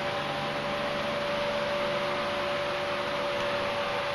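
Steady whooshing hiss with a constant hum tone, like a fan or similar machine running without change.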